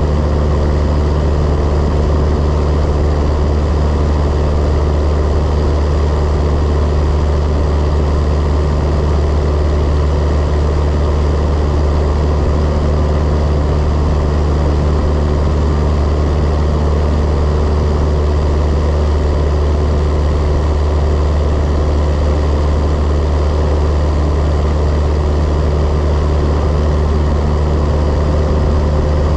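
Cessna 172's piston engine and propeller droning steadily at cruise power, with no change in pitch or level.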